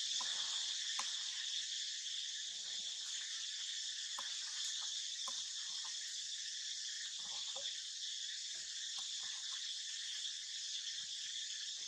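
Steady, high-pitched chorus of forest insects, with faint scattered ticks and taps beneath it.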